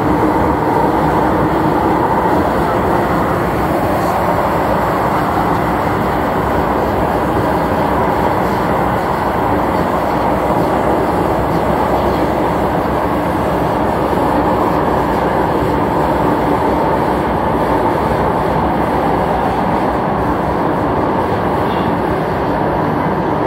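MTR Tsuen Wan line M-train running steadily through a tunnel, heard from on board: a loud, continuous rumble and rush of wheels and air with a faint steady hum in it, a little stronger in the first few seconds.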